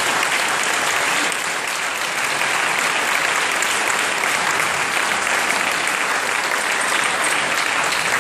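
A large audience applauding steadily at the end of a talk.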